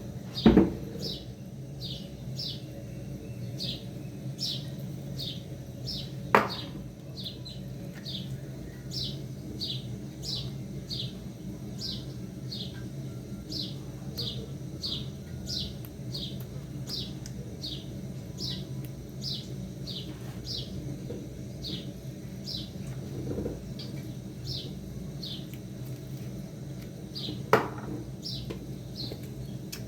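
A bird repeating the same short, falling chirp a little more than once a second, over a steady low hum. Sharp knocks come about half a second in, around six seconds in and near the end.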